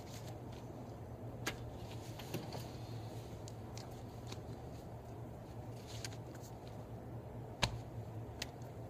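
Quiet small-room tone with a steady low hum, broken by a few faint clicks and brushes of hands and clothing as a person signs; the sharpest click comes about three-quarters of the way through.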